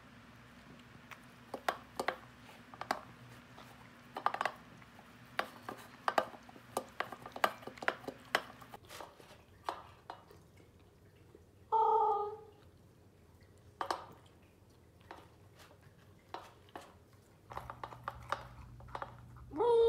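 Pembroke Welsh corgi puppy eating from a stainless steel bowl: irregular clicks and clinks against the metal bowl. She gives one short howl (an "awoo") about twelve seconds in, and another howl begins at the very end.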